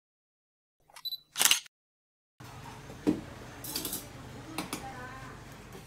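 A brief sharp clack, then the steady hum of a restaurant room with a dull knock and a few dishes clinking on a table.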